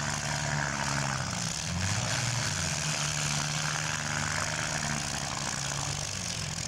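Engines of mini-class demolition derby cars running and revving, the pitch rising and falling, over a steady hiss.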